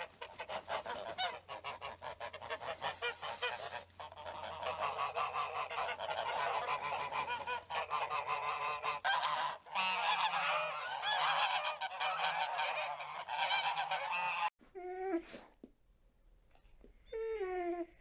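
A dense chorus of many animal calls overlapping, cutting off abruptly about three quarters of the way through. Two separate single calls follow, each falling in pitch.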